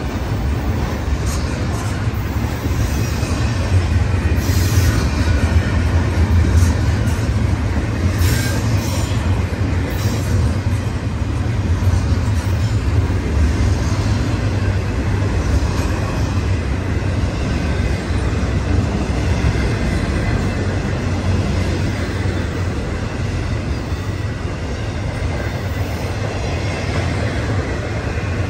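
BNSF intermodal freight train's double-stack container cars and trailer flatcars rolling past at speed: a steady, loud rumble of steel wheels on rail, with a few sharp clanks and rattles in the first ten seconds.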